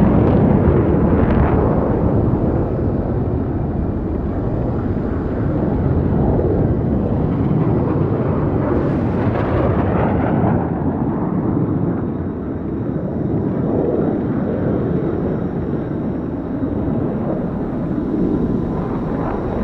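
UT-60D U-wing starfighter's exterior engine noise sound effect: a steady, rushing low rumble, with a brief hissing swell about nine seconds in.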